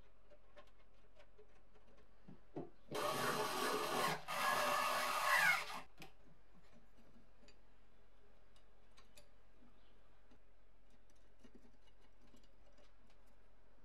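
Cordless screwdriver running in two short bursts about three seconds in, driving a screw into a metal pivot bracket. Around them, faint clicks of small parts being handled.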